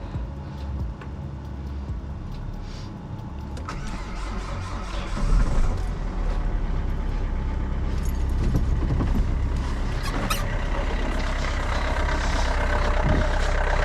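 A 2010 Renault Clio's engine starting about five seconds in and then running steadily at idle.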